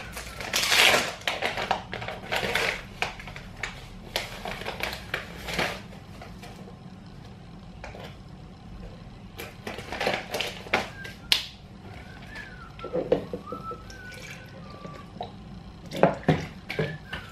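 Handling sounds of making up a supplement drink: irregular clicks, knocks and rustling as a plastic bag of powder and a scoop are worked over a plastic shaker bottle and the powder is tipped in.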